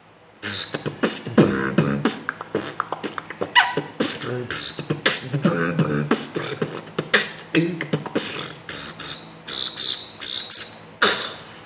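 A beatboxer performing a fast beatbox routine with mouth-made drum clicks and kicks over a hummed bass line, broken by short high whistled chirps. The chirps repeat several times near the end, likely his cricket-sound effect.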